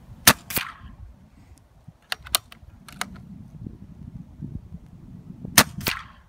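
Two shots from a .177 BSA R10 MK2 pre-charged pneumatic air rifle, one just after the start and one about a second before the end, each a sharp crack followed a moment later by a fainter knock. Between them, quick metallic clicks of the rifle's action being cycled to cock and load the next pellet.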